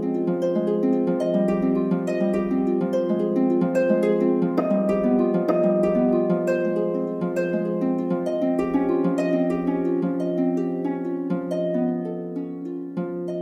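Background music: a gentle harp melody of plucked notes that ring and fade, over a steady low held note, growing softer near the end.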